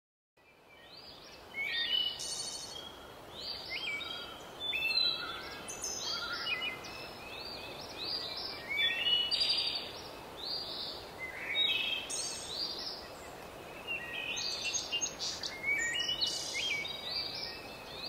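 A chorus of songbirds: many short chirps, whistles and trills overlapping, over a steady outdoor hiss. It starts about a second and a half in.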